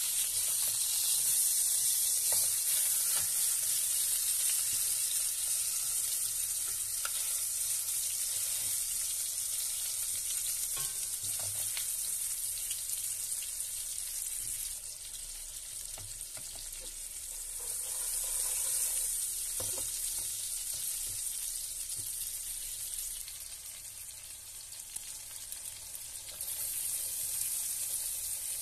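Hot oil sizzling steadily around a large piece of meat searing in a pan, with a few light knocks here and there.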